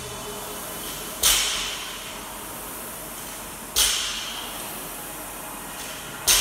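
Barbell loaded with bumper plates dropped onto the gym floor three times, about every two and a half seconds; each landing is a sharp bang with a short echoing tail.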